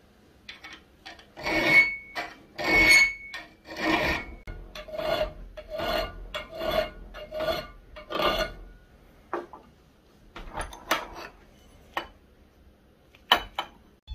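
Round hand file rasping back and forth on a steel knife blank clamped in a bench vise: about eight strong strokes, roughly one every second, some with a thin ring from the steel. After that come a few lighter scrapes and taps.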